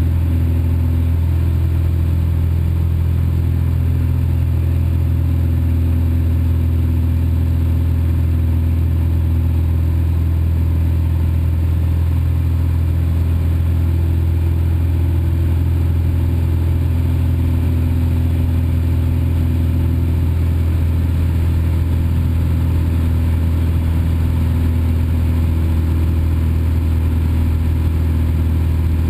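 Cessna 172's piston engine and propeller running steadily in flight, a constant low drone heard inside the cabin.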